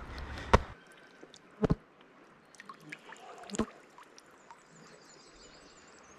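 Quiet river ambience with faint moving water, broken by a few sharp knocks, the loudest about a second and a half in and another about three and a half seconds in. A faint high wavering tone comes in near the end.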